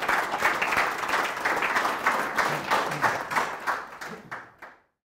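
Audience applauding at the end of a talk. The clapping thins out and fades, then cuts off abruptly near the end.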